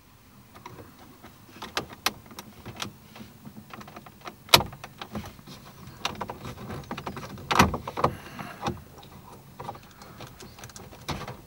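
Irregular clicks and knocks of small plastic car window switches being handled and set down on a hard surface, with two louder knocks about four and a half and seven and a half seconds in.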